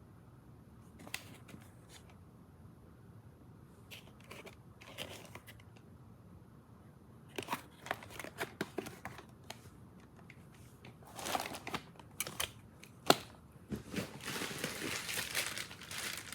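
Objects being handled, with plastic crinkling and rustling and scattered light clicks, sparse at first and busier in the second half, and one sharp click about thirteen seconds in.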